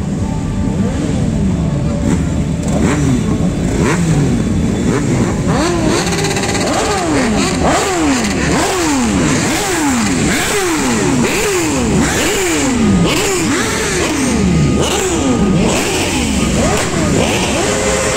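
Many motorcycles riding by in a procession, their engines running over a steady low rumble. From about a third of the way in, riders rev again and again, each engine note jumping up and falling away, about once or twice a second and overlapping.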